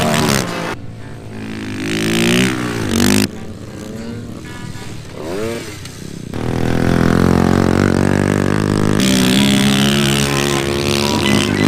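Small motorcycle engines revving and passing during an off-road race, their pitch rising and falling. The sound changes abruptly several times between short stretches.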